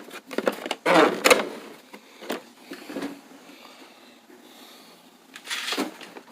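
Hard objects being handled: a few knocks and clatters, the loudest cluster about a second in and another near the end, with quieter rattling between.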